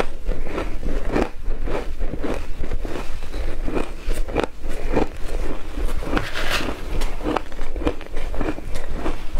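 A mouthful of shaved ice topped with milk powder being chewed, giving a loud, quick, uneven series of crunches.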